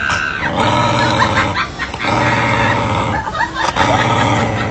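A dog vocalizing in a run of phrases, each about a second long, with short breaks between them.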